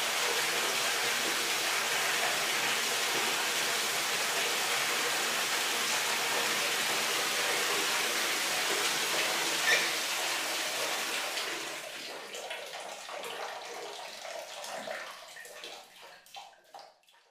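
A steady rushing noise like running water that fades after about eleven seconds, leaving scattered ticks that die away.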